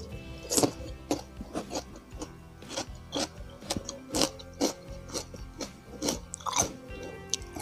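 Close chewing and crunching of raw cucumber slices: a quick, irregular run of crisp crunches, with soft background music underneath.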